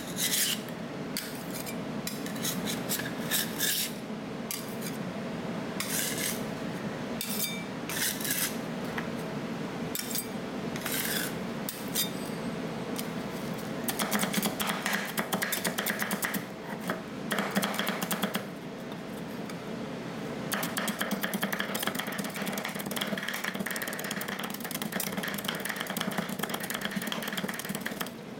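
Metal spatulas chopping and scraping on a steel rolled-ice-cream cold plate: scattered sharp taps, then longer runs of fast, rhythmic metal-on-metal scraping.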